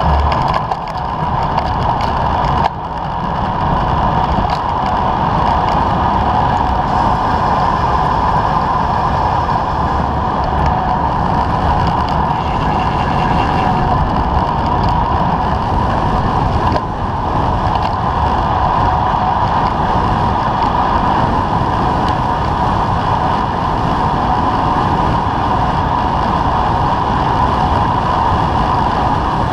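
Wind rushing over a camera microphone on a moving bicycle, with a fluctuating low rumble and a steady hum of tyres rolling on asphalt.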